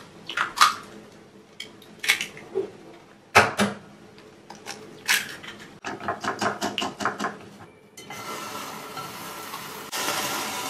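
Eggs knocked against and cracked on the rim of a ceramic bowl, then beaten briskly with chopsticks that tick quickly against the bowl. From about eight seconds in, shrimp sizzle steadily in a frying pan.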